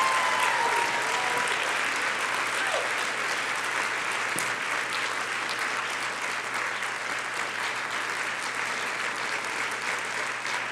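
A large audience applauding steadily, tapering off slightly toward the end.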